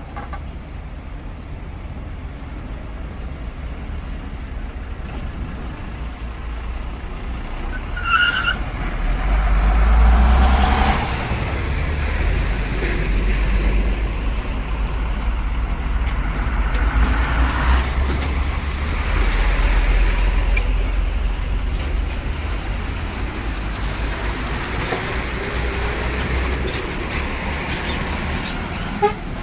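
Highway traffic passing close by: heavy-vehicle engine and tyre rumble swelling and fading as vehicles go past, loudest about ten seconds in. A brief high squeal comes about eight seconds in.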